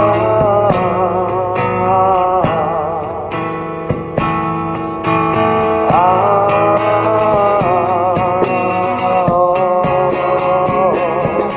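Live band music with no lyrics sung: guitar accompaniment under a melody of long, wavering held notes.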